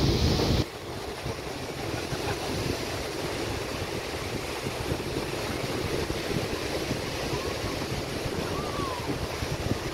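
Steady wash of small waves on a sandy beach. A loud rush of wind on the microphone cuts off suddenly within the first second.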